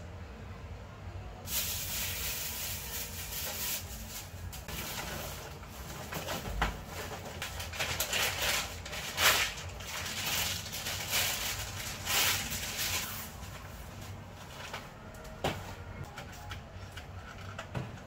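Plastic bags rustling and crinkling as they are handled and sorted, densest in the first two-thirds, with a couple of light knocks of items being moved.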